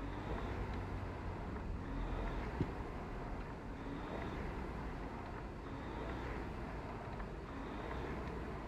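Concept2 indoor rower's air flywheel whirring, surging with each drive stroke about every two seconds, with a chain-and-handle rattle and a sharp click about two and a half seconds in.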